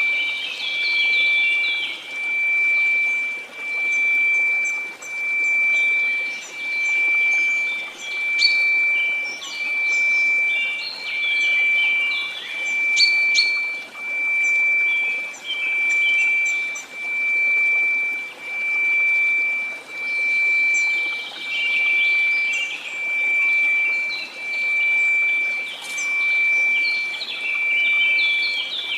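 A steady 2334 Hz sine tone swelling and fading about once a second, over a faint hiss of noise, with bird chirps and twitters scattered through it.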